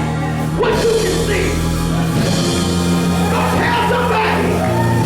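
Live church music: long-held bass and chord tones with a voice singing over them.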